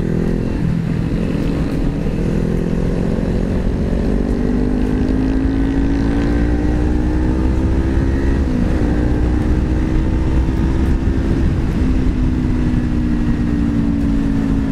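Parallel-twin sport motorcycle engine running under way, heard from on board with heavy wind rumble on the microphone. Its pitch climbs slowly as the bike gathers speed, dips briefly about eight and a half seconds in, then holds roughly steady.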